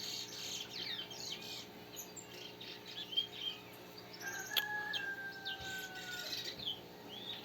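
Several wild birds chirping and calling over one another in morning birdsong. About four seconds in, one long whistled note falls slightly in pitch over two seconds.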